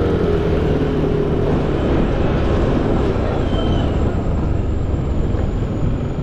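Steady road traffic: vehicle engines running close by, with dense road noise.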